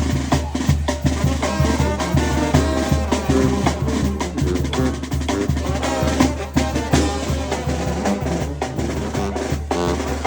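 Loud, up-tempo Latin music with prominent drums and percussion keeping a steady beat.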